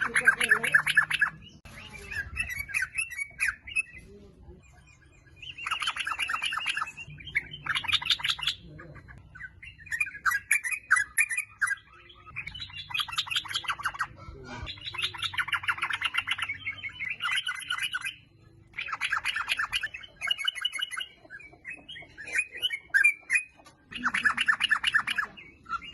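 Yellow-vented bulbul (trucukan) singing in repeated bursts of rapid, bubbly chattering phrases, each a second or two long, with short pauses between.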